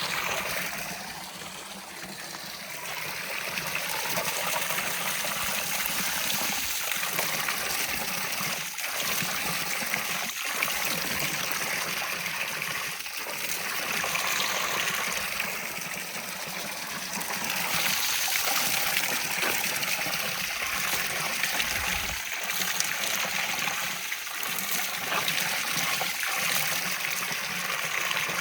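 A tractor-driven rice thresher running: a steady rushing noise that swells and sinks every few seconds, over a low, even hum.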